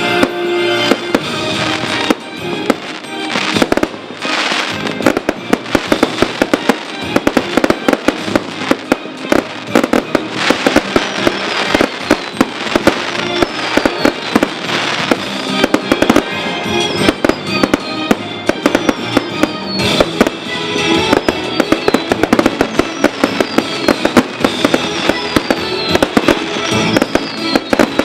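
Fireworks display: a rapid, continuous run of shell bursts, bangs and crackling, with music playing underneath.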